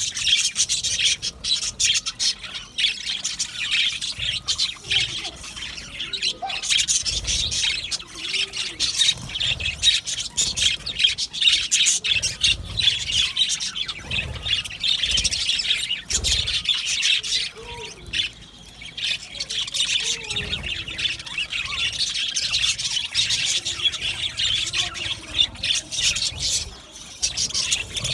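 A colony of budgerigars chirping and chattering all at once, many short overlapping calls without a break.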